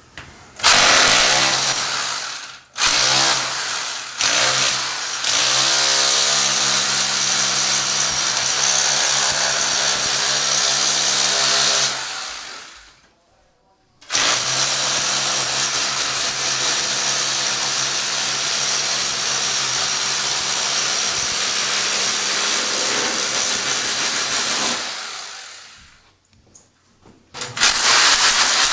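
Electric power chisel (hammer drill in chisel mode) chipping plaster out of a wall corner. It starts and stops in three short bursts, then runs in two long stretches of about eleven seconds each with a pause between them.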